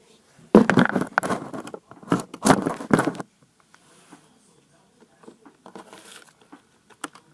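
Crinkling, crunching handling noise in two bursts of about a second each, then faint rustling.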